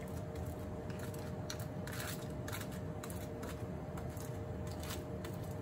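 Metal spoon pressing and nudging crinkly aluminium foil parcels in a steamer pot, giving a few soft crinkles and light scrapes over the steady low noise of water simmering underneath.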